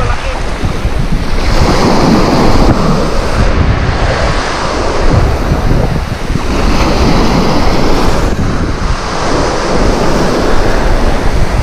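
Small surf breaking and washing up a sandy beach, swelling twice as two waves come in, with wind buffeting the microphone.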